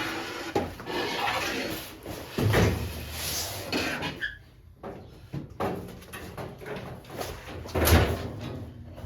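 Knocking and clattering of parts being handled during assembly, with heavier thumps about two and a half seconds in and again near the end.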